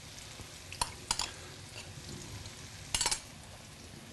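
Spinach and sliced onions sizzling softly in a frying pan, with a few light clinks of a metal spoon and bowl as dollops of ricotta go in: two about a second in and a quick cluster about three seconds in.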